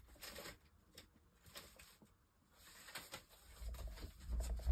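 Faint scattered rustles and small clicks of craft supplies being handled while searching for a piece of silver foil, going nearly silent a little past the middle and picking up again near the end.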